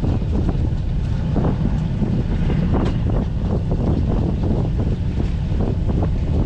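Wind buffeting the microphone on a fishing boat at sea: a constant heavy low rumble with irregular gusty flutters.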